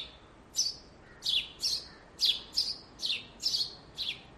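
A small songbird chirping repeatedly: short, high chirps that sweep downward in pitch, about two a second and often in pairs.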